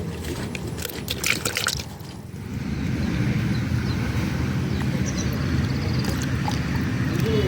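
Water splashing and trickling for the first two seconds, then a steady low rumble.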